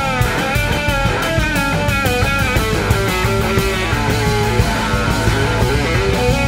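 Live blues-rock band playing, led by an electric slide guitar solo on a Gibson SG whose notes glide between pitches and then move in short runs, over drums, bass and a second electric guitar.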